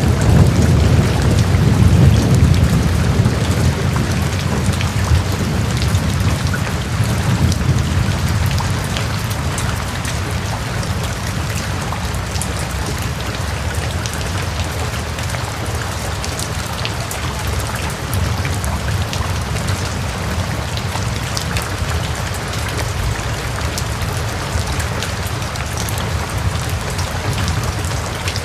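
Heavy rain falling steadily, with scattered sharp drop ticks, over a low rumble of thunder that is strongest in the first few seconds and fades out after about eight seconds.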